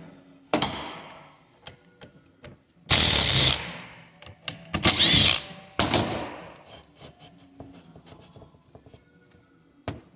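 Cordless drill/driver running in several short bursts, backing screws out of a plastic coolant valve housing, with small clicks of parts being handled between the bursts.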